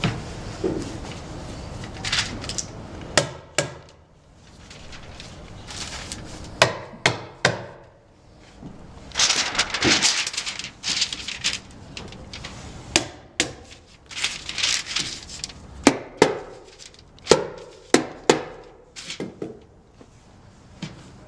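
Hammer tacker driving staples through plastic housewrap into OSB sheathing: some fifteen sharp strikes at irregular intervals, with the housewrap crinkling and rustling as it is handled between strikes.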